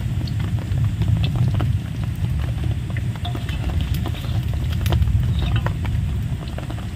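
Jengkol frying in hot oil: scattered crackles and pops from the oil, over a steady low rumble.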